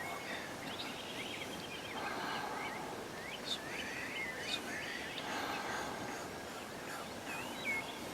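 Wild turkey gobbling twice, each a rattling call about a second long, with small songbirds chirping throughout.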